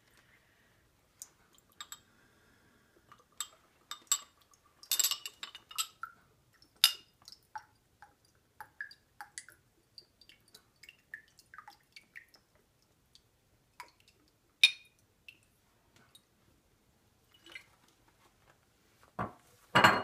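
Small glassware and a bottle clinking and tapping against each other and the counter while liquid is poured, with scattered short clinks and two heavier knocks near the end.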